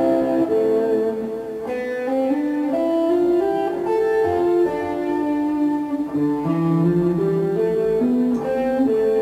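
Electric guitar played solo: a steady run of single notes stepping up and down in a repeating scale pattern, three notes per string, played legato with hammer-ons and pull-offs and half-sweeps across the strings.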